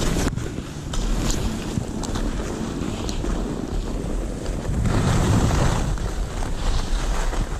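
Wind rushing over the microphone of a skier's head- or chest-mounted camera, mixed with the hiss and scrape of skis sliding on packed snow. It grows louder about five seconds in.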